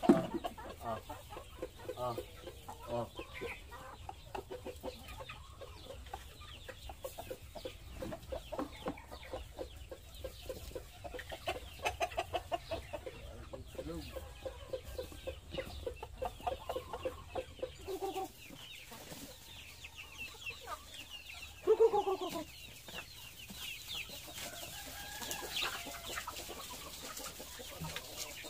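Hens and roosters clucking as they crowd around feed, with a quick run of clucks about twelve seconds in and one louder call about 22 seconds in. A sharp knock sounds at the very start.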